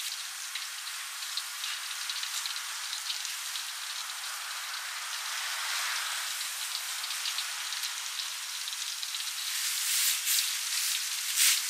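Flour-battered duck pieces deep-frying in hot oil: a steady sizzling hiss with crackling pops, and a few louder pops near the end.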